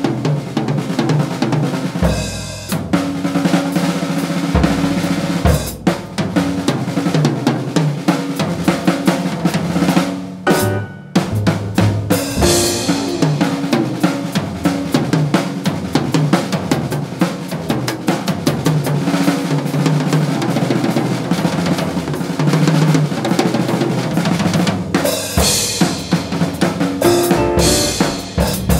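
Jazz drum kit played with sticks in a drum solo: busy snare, tom and bass drum figures with rimshots and cymbal strokes, breaking off briefly about eleven seconds in.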